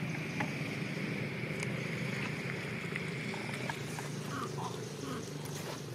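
A steady low motor drone, like an engine running at a distance, with a faint high steady buzz that fades out about four seconds in. A few faint short chirps come just after that.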